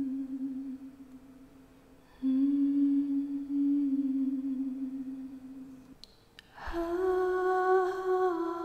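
A woman humming slow, long-held notes without words. One low note fades away, a second low note starts about two seconds in and holds for nearly four seconds, then after two small clicks she moves up to a higher, fuller note near the end.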